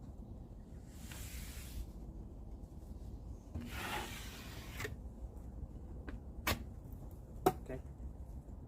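Paper drywall tape rustling and rubbing as it is handled and laid onto wet taping compound, twice, with a few sharp clicks or knocks in the second half.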